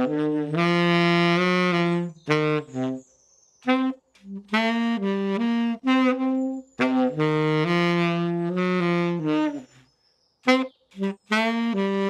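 Tenor saxophone playing a melody in phrases of long held notes and shorter ones, with brief gaps between phrases and a few short clipped notes near the end.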